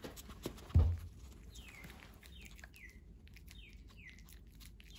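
Pomeranian puppy chewing a lettuce leaf, with light crunching clicks throughout. A thump about a second in. From about a second and a half on, a run of short high chirps, each falling in pitch.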